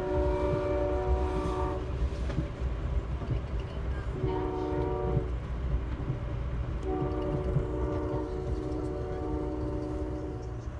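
Amtrak train's locomotive horn, heard from inside a passenger car over the low rumble of the moving train. It sounds a long blast, a short one and another long one, the pattern of a grade-crossing signal.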